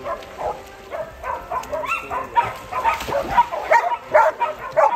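A dog barking and yipping in quick, short barks, several a second, louder in the second half.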